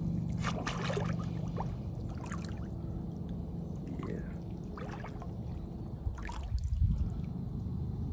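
Water trickling and lightly splashing as people shift about in chest-deep water, with a few small splashes, a low steady hum underneath, and a dull thump about seven seconds in.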